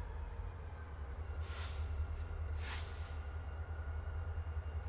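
CSX diesel-electric locomotive moving slowly, its diesel engine running with a steady low rumble and faint high whines. Two short hisses come about a second apart near the middle.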